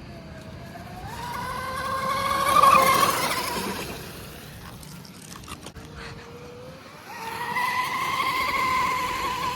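Proboat Black Jack 26 RC catamaran's brushless electric motor, 4300 kV on 3S, whining at speed in two passes. The pitch climbs as the boat accelerates about a second in and is loudest near three seconds, then fades. A second pass starts at about seven seconds and holds steady to the end.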